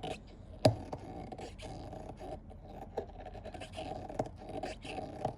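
Rottweiler making rough, grumbling vocal noises in irregular spurts while playing with her toy, with one sharp knock about a second in.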